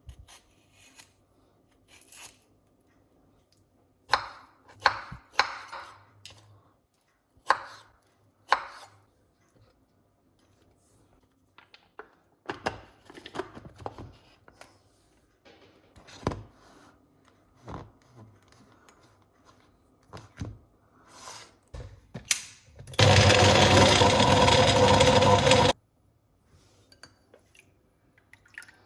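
Kitchen knife striking a chopping board in a few sharp, uneven strokes, then scattered softer knocks and clatter. Near the end an electric kitchen appliance motor runs loudly for about three seconds and cuts off suddenly, as beetroot is being blended for juice.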